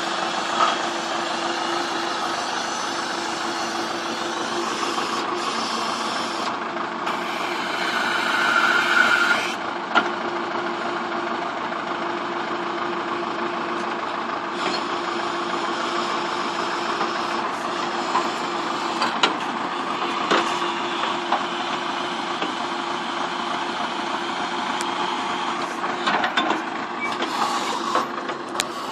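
Farm tractor engines running steadily, with a few short knocks and clanks now and then.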